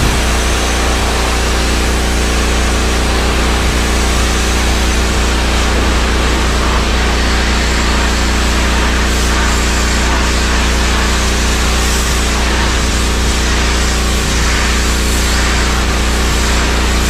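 Pressure washer running: its motor hums steadily under the hiss of the high-pressure water jet spraying the metal shed siding.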